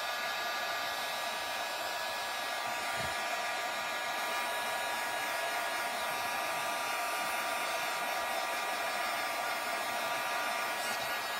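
Handheld heat tool blowing steadily to dry wet paint on a paper journal page: an even rush of air with a steady motor whine through it.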